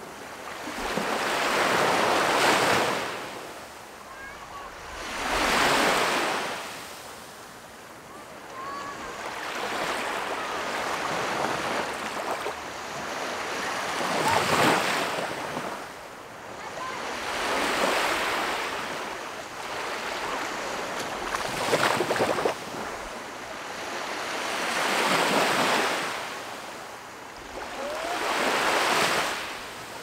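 Small waves breaking and washing up the sandy shore at the water's edge, each swell of surf rising and falling about every three to four seconds.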